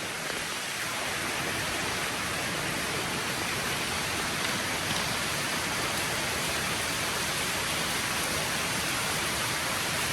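Steady rushing hiss of falling water, like heavy rain, with no let-up.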